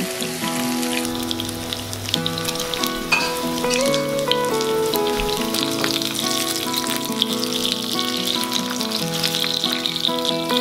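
Salmon steaks sizzling and crackling as they fry in hot oil in a pan, with background music playing a melody over the frying.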